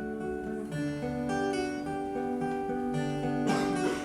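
Classical music played on acoustic guitar: plucked notes in a slow melody, with a fuller strummed stroke near the end.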